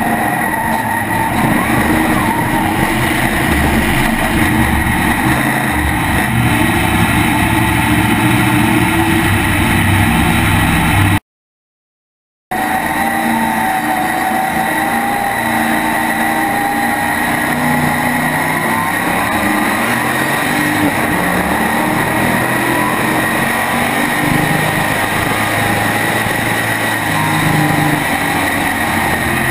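The small-block V8 of an SK modified race car runs hard under racing load, heard from on board over the open engine. Its note rises and falls through the corners. The sound drops out completely for about a second near the middle, then comes back.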